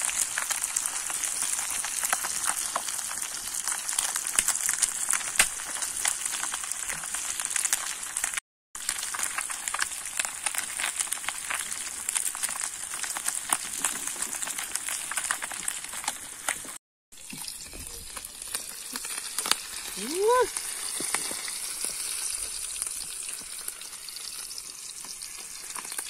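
Fish pieces deep-frying in hot oil in a black iron pan over a wood fire: a steady sizzle full of fine crackles and spattering pops. The sound cuts out briefly twice.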